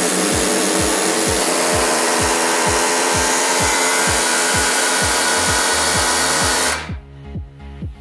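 Pneumatic air hammer running continuously against a seized front lower-arm ball joint, trying to shock it loose. It makes a loud, steady buzzing rattle that cuts off about seven seconds in.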